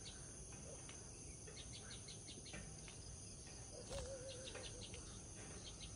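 Faint steady insect trilling with scattered short bird chirps, and a brief wavering call about four seconds in.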